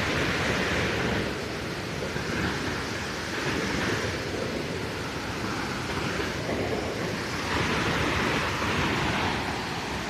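Rushing water of a waterfall in heavy, muddy flow and the stream below it: a steady, loud rushing noise that swells and eases every few seconds.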